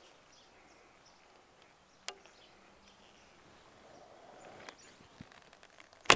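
A laminated Asiatic reflex bow, the Alibow Ming Emperor III, being shot: a single sharp snap of the bowstring on release near the end. Before it there is a light click about two seconds in, and otherwise only faint outdoor background.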